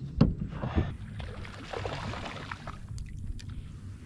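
Water lapping and trickling against the hull of an Old Town Predator PDL kayak. There is a sharp knock just after the start and a few light clicks about three seconds in.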